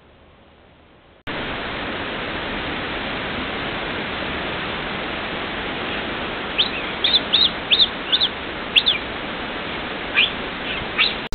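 Cougar chirping: a quick run of about seven short, high chirps, then three more near the end, over a steady hiss.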